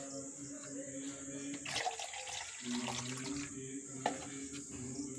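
Liquid being poured from a small clay cup into a steel bowl, a soft trickle, over a steady low hum.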